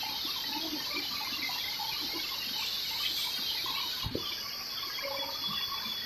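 Tropical forest ambience: a steady high insect drone with scattered short bird calls, and a single dull knock about four seconds in.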